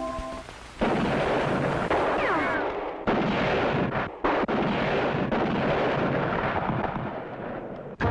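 Gunfire from a Western playing on the television: a few sharp shots, each trailing off in a long rumble, with a falling whine about two seconds in.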